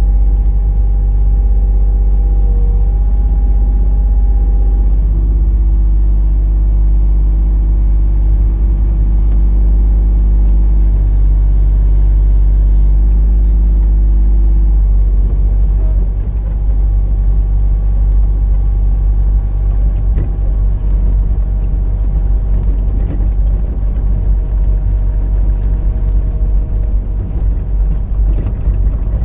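Mini excavator's engine running loudly and steadily, with a deep rumble and a steady hum over it. About halfway through the sound turns rougher and more uneven.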